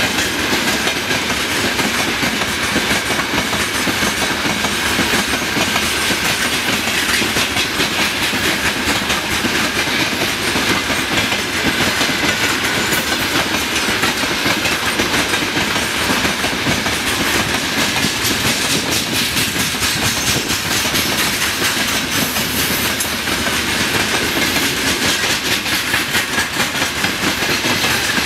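A long freight train of open-top gondola wagons rolling past, steel wheels clacking over the rail joints in a dense, steady run of clicks over a constant rumble of the moving cars.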